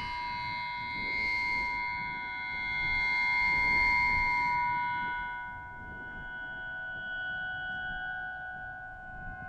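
Wind harp (aeolian harp) strings sounding in the wind: several steady, overlapping high tones that swell to a peak about four seconds in, then die down, over a low rumbling noise.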